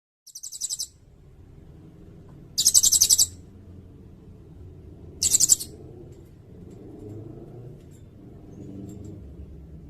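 Sirindet bird singing: three short, high, rapid trills a couple of seconds apart, over a faint low rumble.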